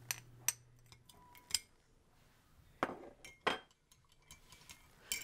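A spoon clinking and tapping against a container while grated ginger is spooned into tea: about six sharp separate clinks, the loudest two about three and three and a half seconds in.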